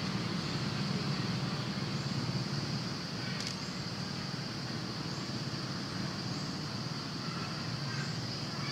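Steady outdoor background noise: a low rumble under a high, even hiss, with one brief click about three and a half seconds in.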